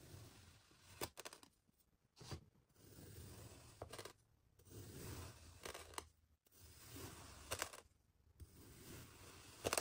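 Kitchen knife slicing through packed kinetic sand: about six soft, gritty crunching strokes in a row, several ending in a sharp click.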